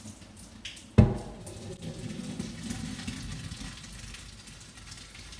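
A large steel pot of boiled macaroni tipped out at a kitchen sink to drain: a sudden loud knock about a second in, then hot water rushing and splashing into the sink for a couple of seconds before tailing off, a noise called "so gross".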